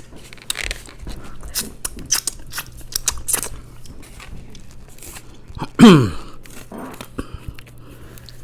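Close-up eating sounds of a person chewing and biting mussels and chicken, with many short wet clicks and smacks. About six seconds in comes one short, loud vocal sound that falls in pitch.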